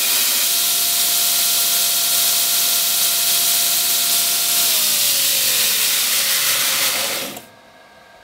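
Knife-making belt grinder running, with a steel knife blade held against a worn abrasive belt. About four and a half seconds in the motor is switched off: its whine falls in pitch as the belt coasts down, and the sound dies away about seven seconds in.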